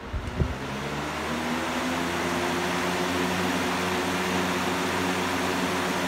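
Lasko box fan set to its highest speed: a low thump right at the start, then the rush of air and the motor hum build over the first couple of seconds and settle into a steady whoosh with a low hum.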